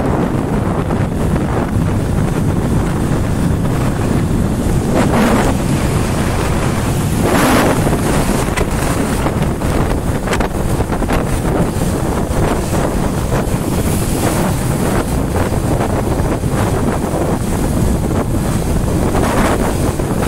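Loud, steady wind rush buffeting the microphone of a motorcycle riding at highway speed, mixed with road noise, with a few brief surges.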